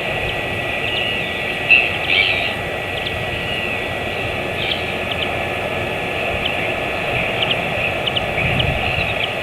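Steady outdoor ambience on a wildlife-camera microphone: wind rumble and hiss, with faint short high chirps scattered throughout and a brief louder call about two seconds in.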